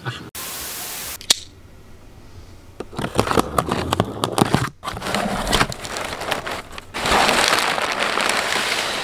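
A box cutter slitting the packing tape along the seam of a cardboard box in short scraping strokes, then hands rummaging through crumpled kraft packing paper inside the box, the paper rustling and crinkling loudest in the last two seconds. It opens with about a second of steady hiss.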